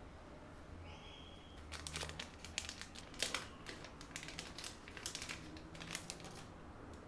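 Crinkly material being handled: a run of irregular sharp crackles lasting about four seconds, starting about two seconds in. It is preceded by a short high tone.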